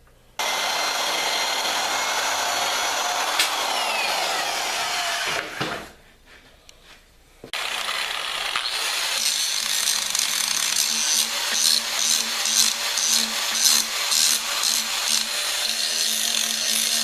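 A metal-cutting power tool taking the corners off a piece of steel stock: a steady, loud cutting noise that starts suddenly, stops a little past a third of the way in, then starts again after a short pause and runs on.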